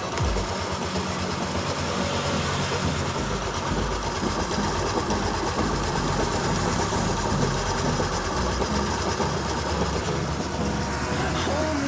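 Suzuki Skydrive scooter engine running with a rough, clattering 'krok krok' noise, the sign of a damaged crankshaft main bearing.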